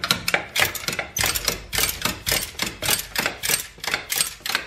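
Ratchet mechanism of a foot-operated jack-up wheel dolly clicking rapidly and evenly, about five clicks a second, as the pawl is released notch by notch to lower the tire.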